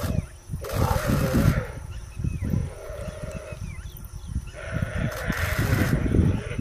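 Animals growling and grunting as they fight, with two longer noisy calls, about a second in and again around five seconds in.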